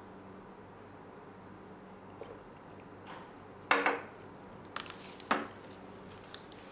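A few sharp clattering knocks, the loudest just under four seconds in, over a steady low hum.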